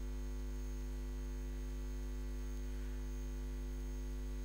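Steady low electrical mains hum with its overtones, unchanging throughout.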